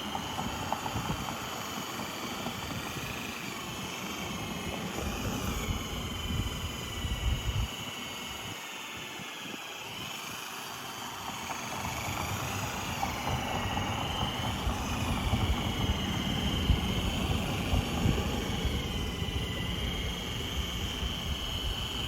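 Power-tool motor whining as it spins a buffing wheel polishing the aluminium of a pontoon boat, its pitch dipping and rising as the wheel is pressed on and eased off.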